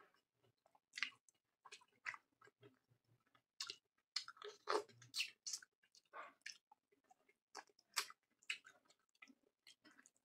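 Close-miked chewing of a mouthful of curry and rice: irregular wet smacks and clicks of the mouth, a few louder ones about a second in, around the fifth second and near eight seconds.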